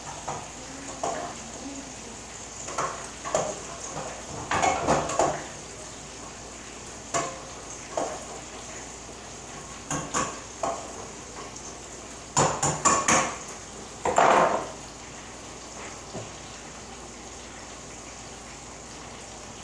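Pots, pans and utensils clattering and knocking on a gas stove at irregular intervals, with a dense run of clatters past the middle, over a steady sizzle of pork chops frying in a skillet. The last few seconds hold only the sizzle.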